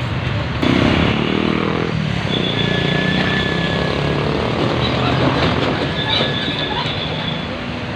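Train passing close by: a steady loud rumble of wheels on rails that steps up sharply about half a second in, with thin high squealing tones from the wheels coming and going.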